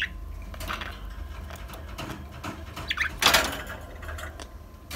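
Budgerigars in their cage: one short falling chirp at the very start, another short chirp about three seconds in, followed straight away by a brief scuffling noise, with faint clicks and scratches between.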